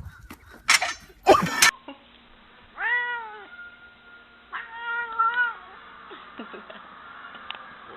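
A cat meowing twice: a short rising-and-falling meow about three seconds in, then a longer, wavering one around five seconds. A couple of short loud noises come before them in the first second and a half.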